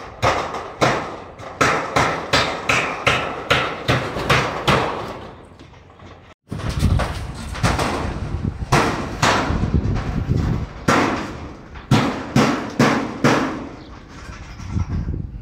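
A hammer striking steel in quick, regular blows, about two to three a second. The blows break off for a moment about six seconds in, then start again.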